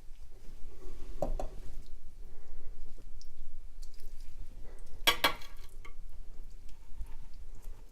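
Chicken pieces and a utensil being set down on a serving plate: a pair of light knocks about a second in, then a louder quick run of clinks against the dish about five seconds in.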